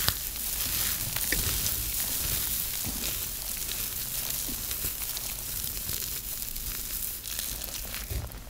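Crispy soap ball being squeezed and crushed by hand, a dense, continuous crunching and crackling with many small snaps. It eases off near the end.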